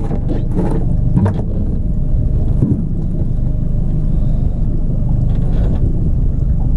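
Steady low rumble of a small fishing boat under way, with wind on the microphone and a few short knocks in the first second or so.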